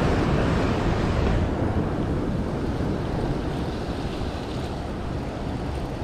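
Wind buffeting the microphone over surf washing against the jetty rocks: a steady rushing noise with a low rumble that eases a little after about a second and a half.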